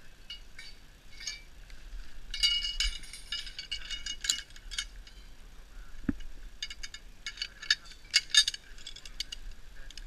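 Metal zip-line hardware, carabiners and a pulley trolley, clinking and rattling as it is clipped onto the steel cable: clusters of sharp metallic clicks, busiest a couple of seconds in and again toward the end, with one dull knock about six seconds in.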